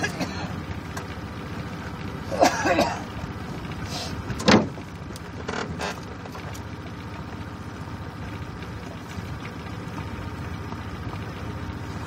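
Boat motor running with a steady low hum, with brief louder sounds about two and a half and four and a half seconds in.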